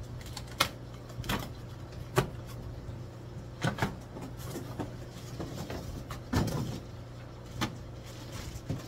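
Irregular knocks, scrapes and rustling of a fish shipping box being unpacked and the bagged fish lifted out. A steady low hum runs underneath.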